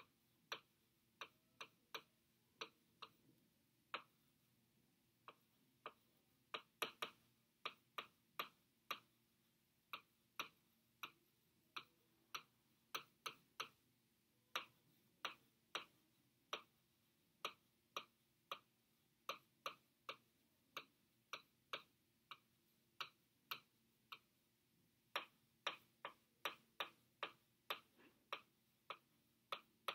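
Stylus tip tapping and clicking against the glass of an interactive touchscreen display while handwriting: sharp, irregular clicks, one to three a second, sometimes in quick clusters, with a couple of short pauses, over a faint low hum.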